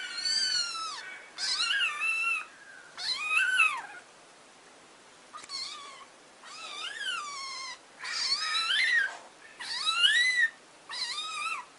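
Kitten meowing over and over: about eight meows, each rising and then falling in pitch, with short pauses between.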